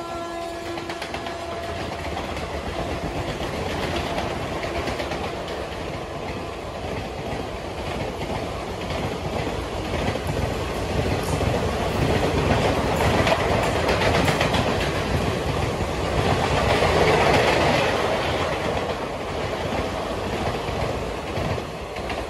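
Passenger train coaches passing at speed, wheels clattering over the rail joints with a steady rush of noise that grows louder through the middle. A blast from the electric locomotive's horn dies away about a second in.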